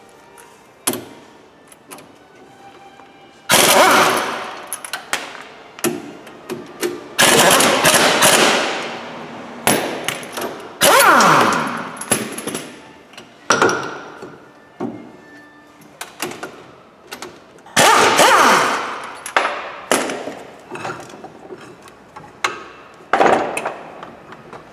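Impact wrench hammering in bursts on the bolts of a Ford Transit's front hub and brake assembly, about five loud rattling runs of a second or so each, with clanks and metallic ringing between them.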